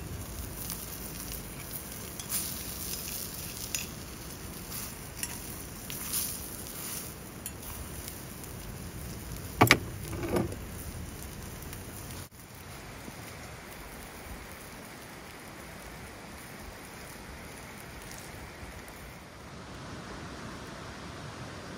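A thick slice of bread sizzling in a cast-iron skillet over a wood fire, with frequent small crackles and pops. About ten seconds in there is a sharp knock, and after a sudden change near the middle the sizzle goes on softer and steadier.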